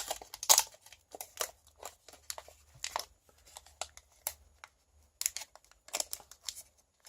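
Pokémon booster pack foil wrapper and cards being handled: irregular crinkling and crackling with short sharp snaps, as the pack is opened and the cards taken out.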